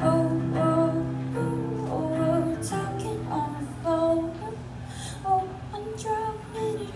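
A woman singing a slow song over her own acoustic guitar, live through a microphone and PA speakers, with held notes.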